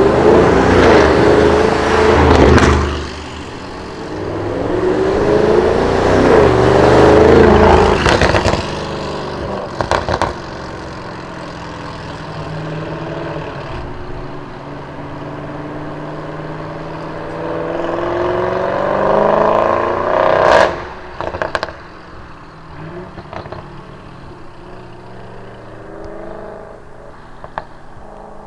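Audi RS6 C7's twin-turbo V8 accelerating hard in several pulls, its pitch rising each time, with sharp exhaust crackles and pops when the throttle closes. Afterwards the engine runs quieter and steadier, with a few last pops.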